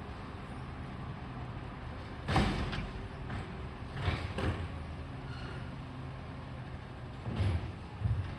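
Garbage truck's diesel engine running steadily, broken by several sudden loud clanks and hisses from the truck at work: the loudest about two seconds in, more around four seconds, and two near the end.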